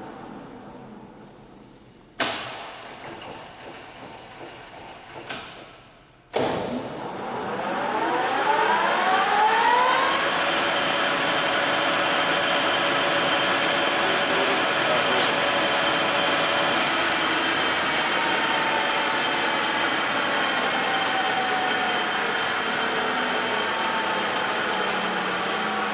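LeBlond Regal engine lathe changing spindle speed with its Servo Shift: the spindle winds down, sharp clunks come about two, five and six seconds in as the headstock gears shift, then the spindle spins up with a rising whine and settles into a steady run at speed.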